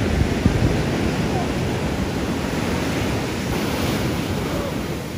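Ocean surf breaking and washing up a beach in a steady rush, with wind buffeting the microphone.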